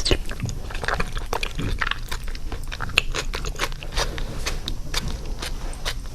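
Close-miked chewing and biting, with many crisp, irregular crunches and clicks. The loudest is a sharp one at the very start.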